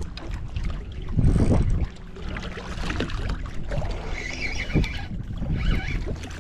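Wind buffeting the microphone on a small skiff, with a strong gust about a second in and scattered knocks from the boat.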